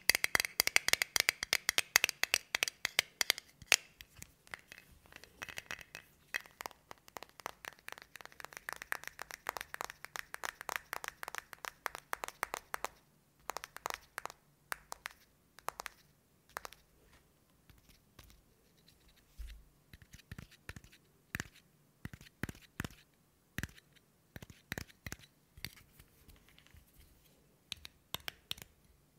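Long fingernails tapping and scratching on the lid of a small metal Vaseline Lip Therapy tin, held close to the microphone. The first dozen seconds or so are a dense, fast patter of clicks; after that the taps come slower and sparser.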